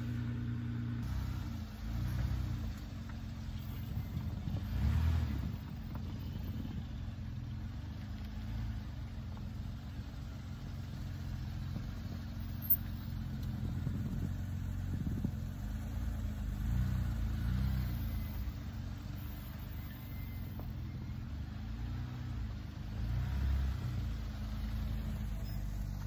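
Nissan minivan's engine running at low revs, its pitch rising and falling again and again as the van is driven slowly through snow.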